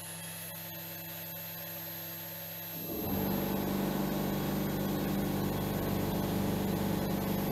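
CNC router spindle driving a 6mm carbide end mill side-milling a steel block, with a steady high whine. About three seconds in, the cutting noise becomes much louder and stays steady as the end mill bites into the steel.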